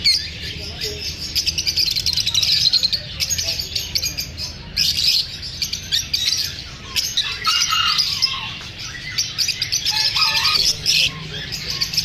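A flock of caged lovebirds, masked and Fischer's lovebirds among them, chattering with a dense, continuous stream of shrill chirps and squeaks.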